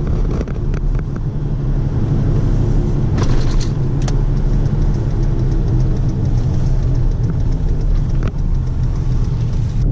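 A vehicle engine running steadily, picked up by a GoPro Hero5 Black's built-in microphones with the side door on. A few sharp clicks sound over it, around a third of the way in and again near the end.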